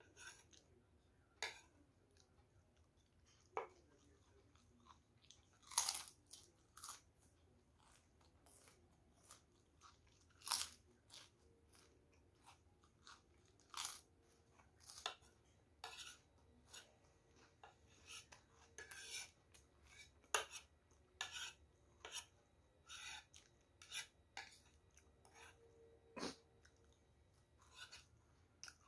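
Chewing and crunching of krupuk crackers and fried noodles, with sharp clicks of a spoon and fork on a plate. The crunches and clicks come irregularly, about one or two a second.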